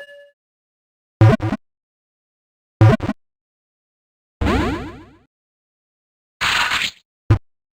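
A series of short cartoon-style sound effects, each followed by total silence: two quick knocks with a low thump, a half-second sweeping sound, a short hissing burst, then a brief click near the end.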